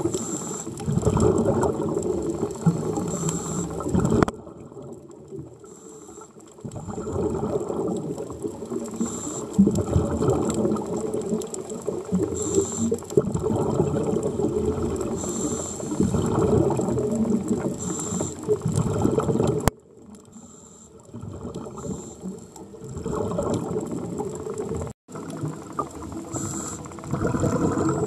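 Scuba divers' exhaled bubbles from their regulators, heard underwater as a rough crackling rumble in long stretches, with quieter pauses twice in between.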